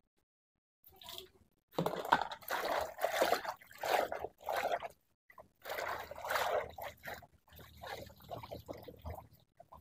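Water splashing and trickling in irregular bursts as vegetables are washed, starting about two seconds in.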